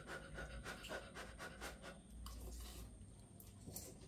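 Quiet eating sounds of spicy instant noodles being eaten from cups with forks: a quick run of short mouth clicks and smacks, then a longer slurp or breath a little past halfway.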